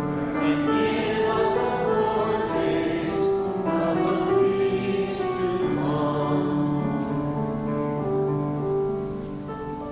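Congregation singing the offering response together in held notes, dying away near the end.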